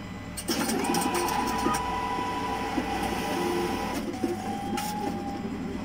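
ATM receipt printer printing and feeding out the transaction slip after a cash deposit is confirmed. It makes a mechanical whirring that starts about half a second in, with a steady whine that drops to a lower note about four seconds in.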